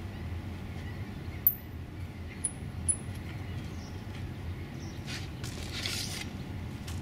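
Transom wheels on an inflatable boat being folded by hand: three short, sharp, high clicks about a second and a half to three seconds in, then a rustling scrape near the end, over a steady low rumble.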